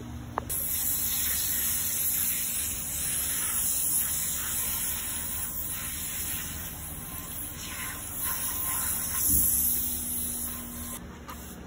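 Water spraying from a hose spray wand onto a horse's wet coat: a steady hiss that starts about half a second in, just after a short click, and stops shortly before the end.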